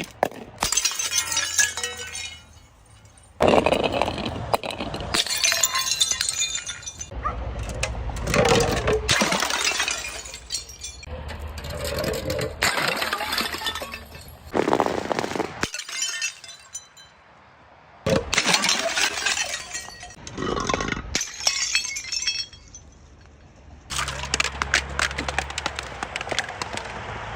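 Glass bottles breaking and being crushed, shattering and crunching with clinking shards, in a run of separate short takes with brief pauses between them.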